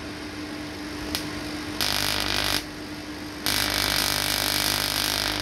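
Continuous-wave vacuum-tube Tesla coil arc drawn from the topload to a grounded rod, hissing in two bursts: a short one about two seconds in, then a longer one from about three and a half seconds. A steady hum runs underneath.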